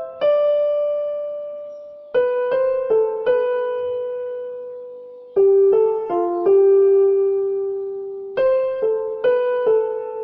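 Soft background music: gentle electric piano notes played in small clusters that ring and slowly fade.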